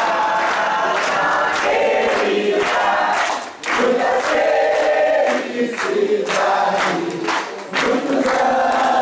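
A group of people singing a birthday song together in chorus, with handclaps keeping time along with it.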